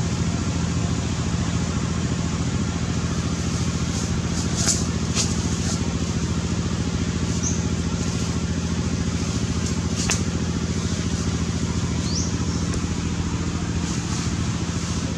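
Steady low mechanical hum, like a motor running, with a few faint clicks and three or four short, faint high chirps.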